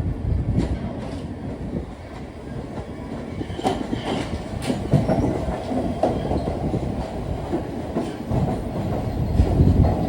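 R46 subway train running along the track, a steady rumble with its wheels clacking over rail joints at irregular intervals.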